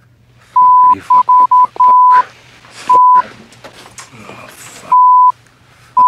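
Censor bleeps: a steady 1 kHz tone sounding seven times, some short ones in quick succession, each covering a spoken swear word. Bits of men's voices are heard between the bleeps.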